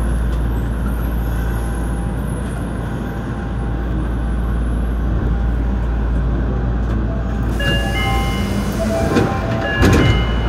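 Nagoya subway 5050-series train standing at a station platform with a steady low hum. About three quarters in, a short run of chime-like tones at several pitches sounds, followed by two thuds near the end.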